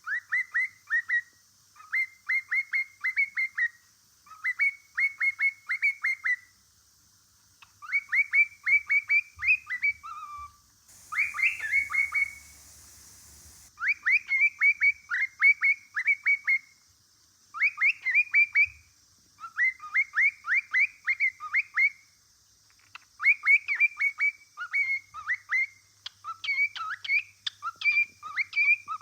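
Male cockatiel singing: repeated phrases of rapid whistled chirps, each lasting a second or two, with short pauses between them, rising higher and busier near the end. A brief hiss breaks in near the middle.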